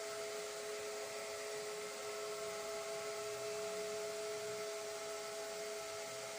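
Steady whir of an electric motor, two even hum tones over a hiss; the lower tone drops away near the end.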